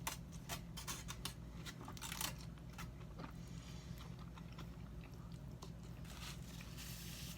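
Close-up chewing of a mouthful of chicken fajita taco in a soft tortilla: wet mouth clicks and smacks, busiest in the first couple of seconds and again near the end, over a steady low hum.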